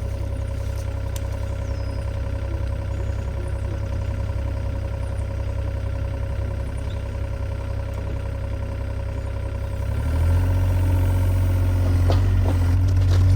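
An engine running steadily at idle, then revving up under more load about ten seconds in.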